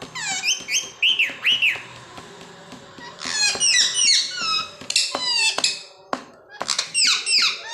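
Pet parrots calling in several bursts of short, shrill, whistly calls, each sliding down in pitch.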